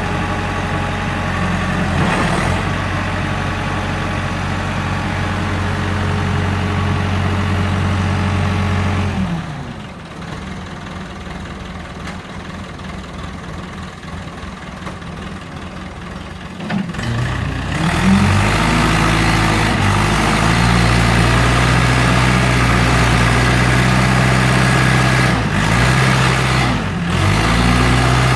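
Engines of heavy farm vehicles running. A steady engine hum falls in pitch and fades about a third of the way through. After a quieter stretch, an engine comes up with a rising pitch about two-thirds of the way through and runs steadily and louder, with two brief dips near the end.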